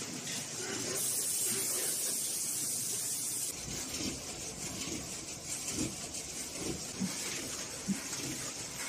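Snack packaging machinery running: a steady hiss, much stronger for a couple of seconds after about a second in, then soft irregular knocks and a few sharp clicks.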